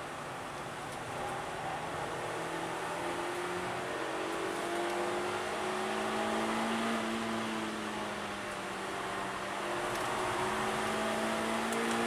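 Suzuki Swift Sport's four-cylinder engine, heard from inside the cabin, pulling hard as the car accelerates: its note climbs slowly, eases briefly about two-thirds of the way through, then climbs again. Steady tyre and wind noise underneath.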